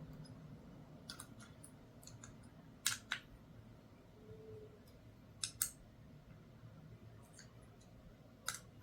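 Scattered sharp metal clicks and taps as a TruGlo sight is worked loose and taken off an AR-15's rail. The loudest come as two quick pairs about three and five and a half seconds in, and one near the end.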